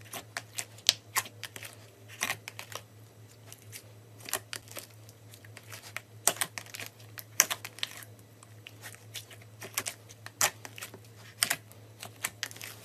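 Thick pink slime squeezed and kneaded by hand in a plastic tub, giving off irregular sharp clicks and pops as air pockets in it are squashed.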